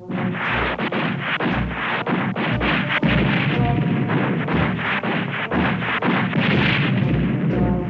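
Recorded sound effect of a battle-like barrage: a dense run of sharp bangs over repeated low booms, starting abruptly.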